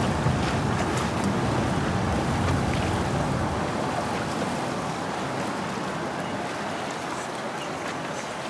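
Steady rushing noise of wind and water around a boat, slowly getting quieter.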